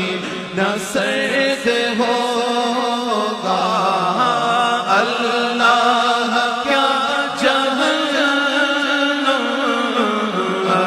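Devotional naat singing: layered voices chanting long held notes that slide in pitch.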